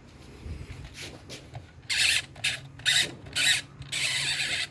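Plastic rubbing and scraping as the dial of a mechanical 24-hour timer plug is turned by hand: four short scrapes about two seconds in, then a longer one near the end.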